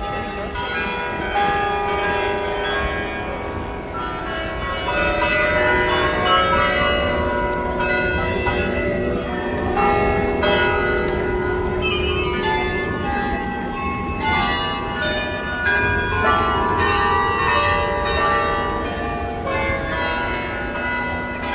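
Church bells ringing, with many overlapping bell tones struck in turn and left to ring on.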